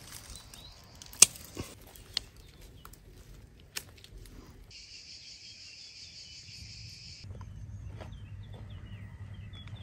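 Leaves rustling, with a few sharp snaps of stems as plants are picked by hand; the loudest snap comes about a second in. Next a steady, high insect buzz runs for about two and a half seconds. Near the end, birds chirp over a low hum.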